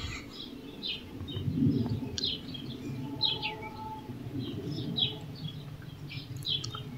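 Small birds chirping: a dozen or so short, high chirps at irregular intervals, over a low steady background rumble.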